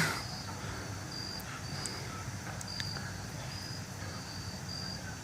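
Insects chirping: short, high chirps repeating about once or twice a second over a low steady hum.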